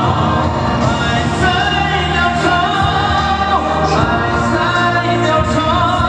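Loud music with singing, the voices holding long notes.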